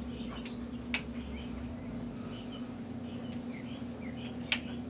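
Faint bird chirps over a steady low hum, with a couple of light clicks from the opened plastic battery pack being handled, about a second in and near the end.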